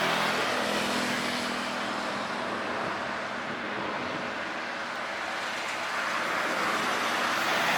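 Steady engine noise: a wide rushing hiss with a low hum under it, easing a little midway and swelling again near the end.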